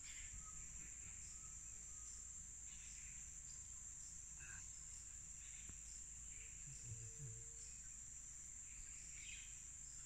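Faint, steady, high-pitched drone of insects, with a few soft chirps scattered through it.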